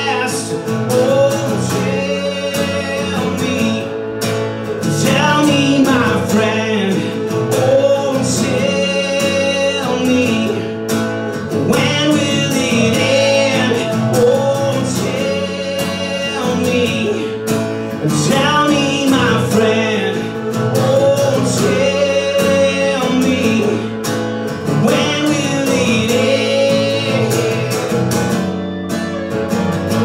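Live band music: a strummed acoustic guitar and an electric guitar play an instrumental passage, with a melodic lead line on top and a steady beat.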